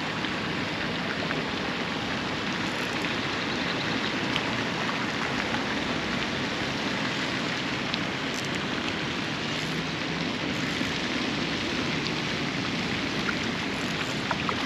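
Steady, even rush of running water with no break, with a few faint ticks over it.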